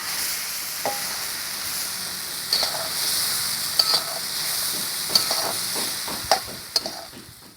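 Fried prawns sizzling in a buttery salted-egg sauce as they are stirred, with a spatula scraping and clinking against the pan every second or so. The sizzle fades out near the end.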